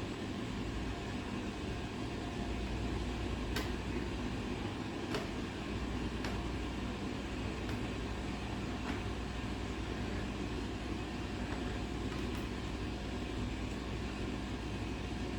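Steady low mechanical hum of room machinery, with a few faint clicks and taps spread through it.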